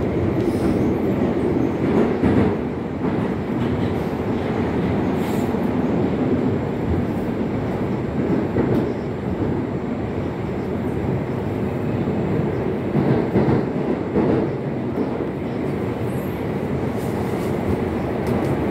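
Moscow metro train of the Moskva-2020 type running through a tunnel, heard from inside the car: a steady, loud rumble of wheels on rail and running gear, swelling now and then.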